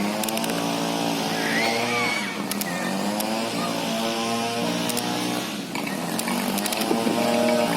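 Excavator's diesel engine running under working load, its pitch dipping and recovering a couple of times as the hydraulics lift the wooden beams, with a few faint clicks.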